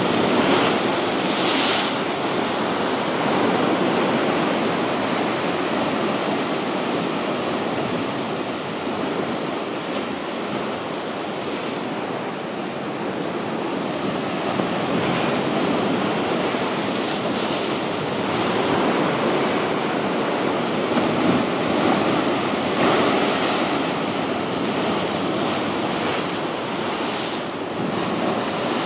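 Mediterranean sea waves breaking on rocks: a continuous rush of surf that swells and eases with each wave as it crashes and drains off the rocks.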